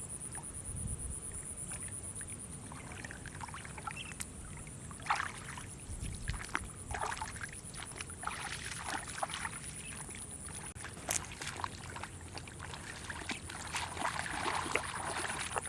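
Water splashing and sloshing in short, irregular bursts, as from hands working in shallow water. A thin, steady high-pitched whine runs under it and fades about eleven seconds in.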